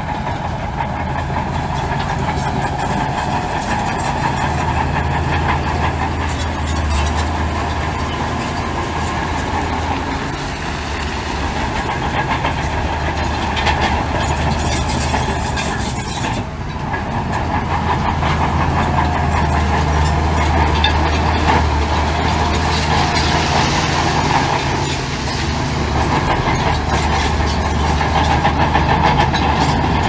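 Heavy diesel earthmoving machinery running steadily under load: a continuous low engine drone with metallic rattling and clanking over it. The sound dips briefly a little past halfway, then picks up again.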